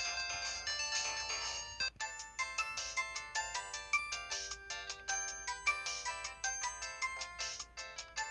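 Built-in ringtone melodies playing from a Samsung SPH-B2350 mobile phone's speaker. One tune cuts off about two seconds in, and the next starts: a quick melody of short synthesized notes, several sounding at once.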